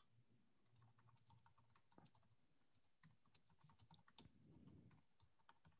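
Very faint computer keyboard typing: a scatter of soft, irregular key clicks, otherwise near silence.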